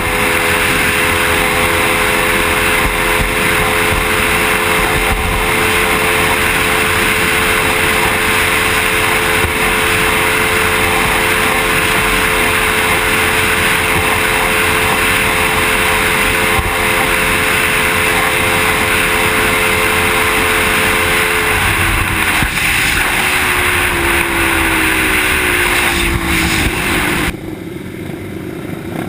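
Suzuki motorcycle engine held at steady cruising revs under heavy wind and road rush. About three quarters of the way through, the engine note falls steadily as the rider backs off the throttle to slow down. Near the end the rushing noise drops away.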